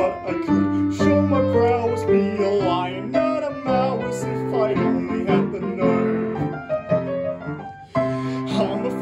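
Piano accompaniment to a musical theatre song, with a voice singing over it. The music breaks off for a moment near the end and comes back in with a chord.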